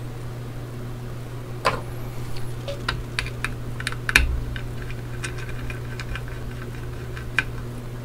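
Scattered light clicks and taps of small metal screws and tools as hands work on an opened Seagate Barracuda 7200.11 hard drive, the sharpest tap about 4 seconds in, over a steady low hum.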